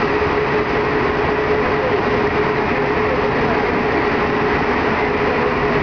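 Alstom NS-93 rubber-tyred metro train running steadily through a tunnel, heard from inside the car: a dense, even running noise with a steady whine.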